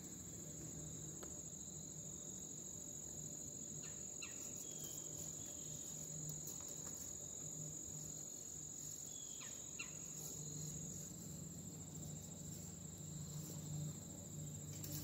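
Crickets trilling in one steady, high, continuous tone, with a few faint clicks now and then.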